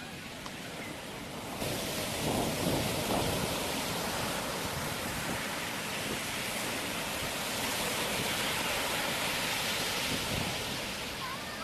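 Steady rushing noise that gets louder about a second and a half in.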